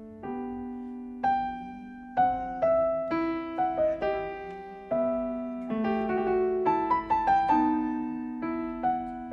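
Background piano music: a slow melody of struck notes, each fading away, over lower held chords.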